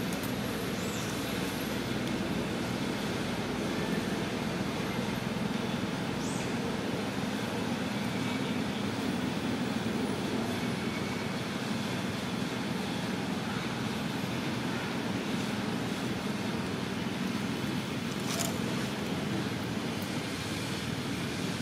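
Steady low outdoor background rumble, even throughout, with a single brief click about three seconds before the end.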